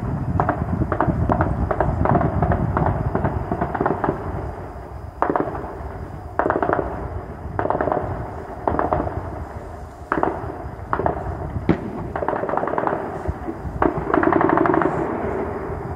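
Repeated bursts of rapid automatic gunfire, echoing off the buildings, with a longer, louder burst near the end.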